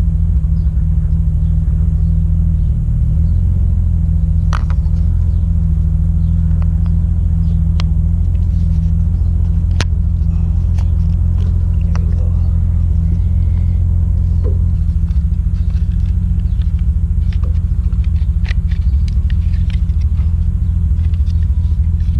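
A vehicle engine idling steadily, a loud low rumble, with faint scattered clicks and taps on top.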